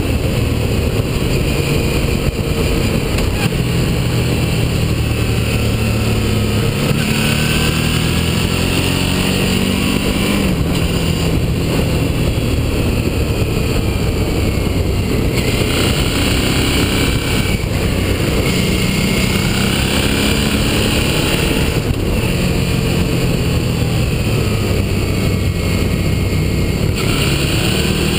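Motorcycle engine running under load, heard from on the bike. Its pitch climbs with the revs and drops back several times, as at gear changes, over a steady rush of wind and road noise.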